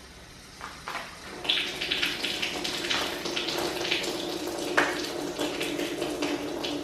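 Water starting to run out of a drain valve downstream of a Seccua UrSpring filter as the feed valve is opened, spitting and gushing unevenly as air is pushed out of the newly filled system, over a steady low hum. It begins about half a second in and grows stronger.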